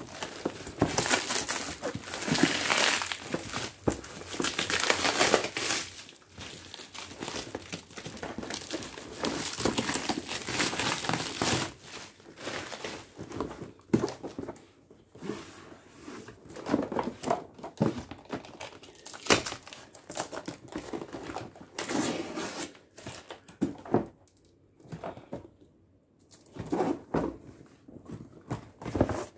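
Black plastic wrapping crinkling and rustling as it is pulled off a cardboard box, dense and continuous for about the first twelve seconds, then in shorter scattered rustles with a few sharp crackles that thin out near the end.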